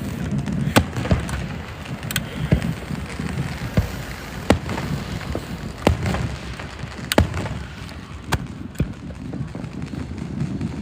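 Fireworks going off: a scattered series of sharp pops, roughly one a second, over a low steady rumble.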